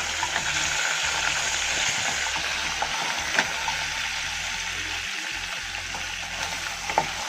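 Crab pieces frying in oil and masala in a pan, cooked without added water: a steady sizzle, with a few light clicks partway through and near the end.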